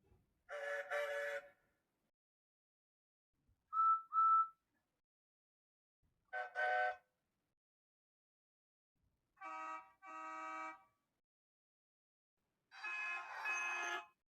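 Train whistle and horn sound effects played one after another, each a double toot of two short blasts with silence between the pairs. The second pair is a thin high whistle; the others are fuller, chord-like horns and whistles.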